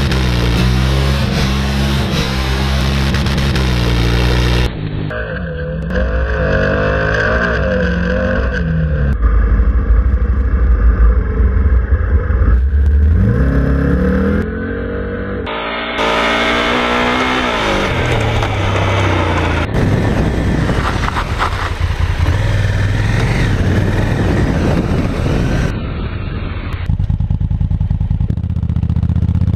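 Honda CRF1000L Africa Twin's 998 cc parallel-twin engine revving up and down through the gears while ridden off-road, with gravel and wind noise under it. The sound changes abruptly several times at edits between onboard camera shots.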